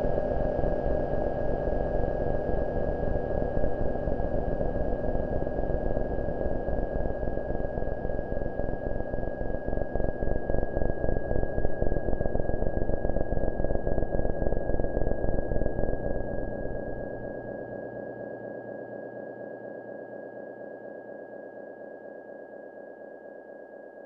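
Homemade analog noise synthesizers playing a drone: a steady high whistling tone over a dense, rapidly pulsing buzz. About seventeen seconds in the low buzz drops away and the whole drone fades down, leaving the high tone.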